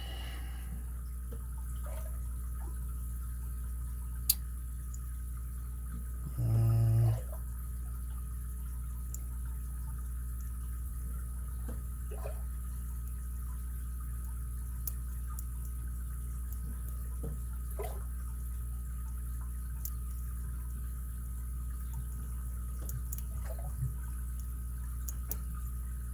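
Faint, sparse clicks and ticks of a lock pick and tension wrench working the pins of an ABUS 83CS/55 padlock, over a steady low hum. One sharper click about four seconds in, and a brief low hum at about six and a half seconds.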